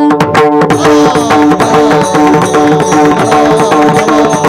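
Kirtan accompaniment: a harmonium holding steady notes over quick, dense hand-drum strokes.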